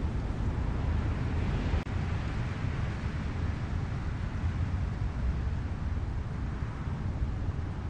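Steady wind rumbling and buffeting on the microphone during a snowstorm, with a brief dropout about two seconds in.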